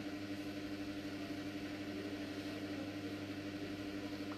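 Steady low electrical hum over a faint hiss, with no change throughout.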